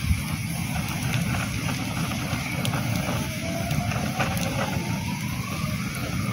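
Wood campfire burning, with a few sharp crackles over a steady low rumble. A faint tone rises slowly in pitch through the second half.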